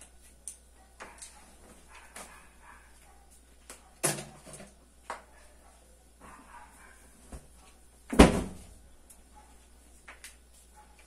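Laundry being pegged onto a washing line: light clicks of wooden clothespins and rustling fabric. Two louder short sounds come about four seconds apart, the second the loudest.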